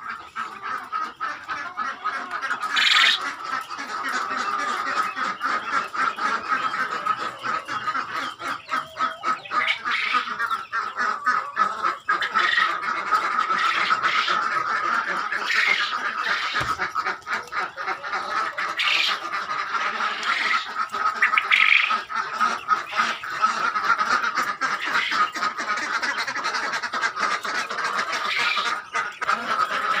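Mixed poultry flock of quail, ducks and laying hens calling continuously: a dense, steady chatter with louder calls breaking out every few seconds, quacking among them.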